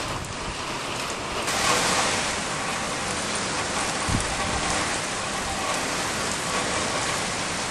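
Heavy storm rain falling, a steady hiss that grows louder about a second and a half in. A brief low thump about four seconds in.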